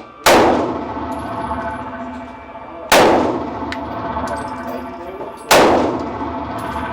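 Three gunshots about two and a half seconds apart. Each one rings on in the echo of an indoor shooting range.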